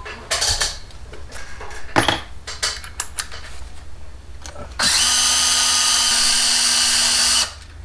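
A few light clicks and knocks of small parts being handled, then a small electric drill runs at one steady speed for about two and a half seconds before stopping.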